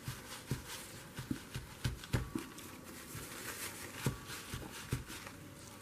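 Paper and a book being handled on a tabletop: a dozen or so irregular soft taps and light knocks with faint rustling, the loudest about two and four seconds in.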